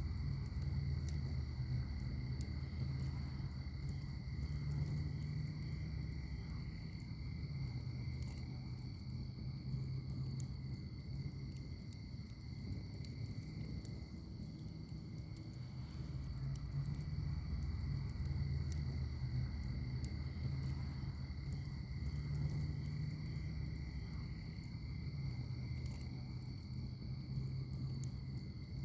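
Wood fire in a fire pit crackling, with small sharp pops scattered throughout over a steady low rush. Crickets chirp steadily in the background as two unchanging high tones.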